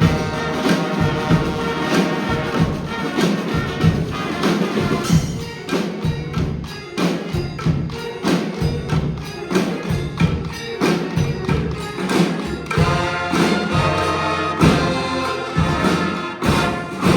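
Live honk band of horns and drums playing a tune, with the horns over a steady drum beat.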